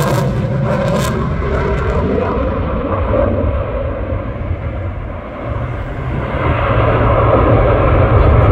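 Loud aircraft engine noise from an aircraft passing. A few sharp crackles come in the first second. The hiss fades over the next couple of seconds and the sound dips a little past the middle, then grows louder again toward the end.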